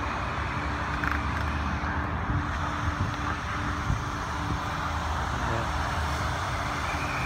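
Car wash vacuum running steadily: an even rush of air over a low motor hum.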